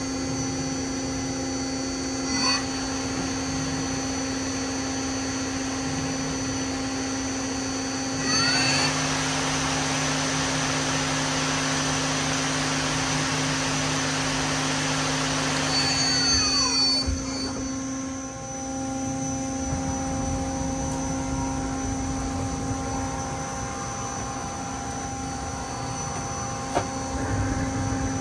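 Mazak SQT-200 CNC lathe running with a steady hum. About eight seconds in, the spindle speeds up with a rising whine and a loud rushing noise, runs for about seven seconds, then slows down with a falling whine. A brief chirp comes about two seconds in.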